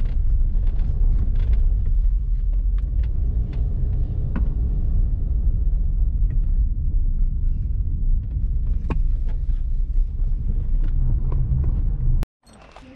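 Low, steady rumble of a car driving slowly, heard from inside the cabin, with a few faint clicks. It cuts off suddenly near the end.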